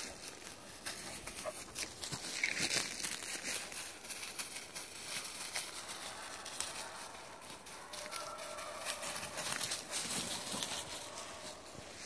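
Footsteps crunching through dry pine needles and brush, with irregular crackles of twigs and dry leaves.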